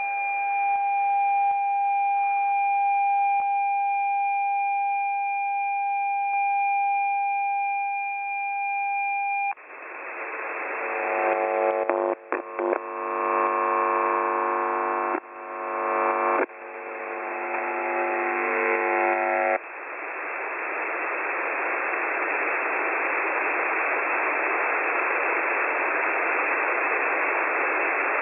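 Shortwave radio reception of the UVB-76 transmitter: a steady tone for about nine seconds, then a harsh many-toned sound that swells and cuts off abruptly several times for about ten seconds, then plain radio static hiss.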